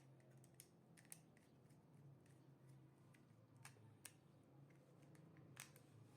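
Near silence with a faint low hum and a handful of scattered, sharp small clicks: hand tools and wires being handled while control-circuit wiring is connected.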